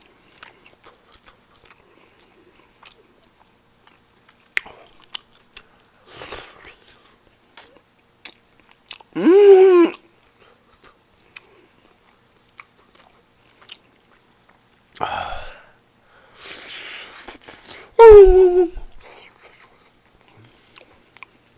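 A person chewing and eating a mouthful of food, close to the microphone, with many small wet mouth clicks. Two loud, short vocal sounds, like hums, break in: one rising in pitch about halfway through and one falling near the end.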